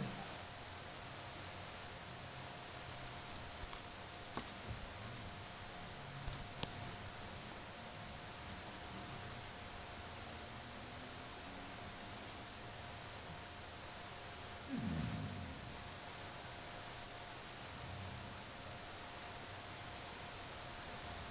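Steady high-pitched trilling of crickets, with a fainter, lower steady tone beneath it. About fifteen seconds in comes one brief low sound that falls in pitch.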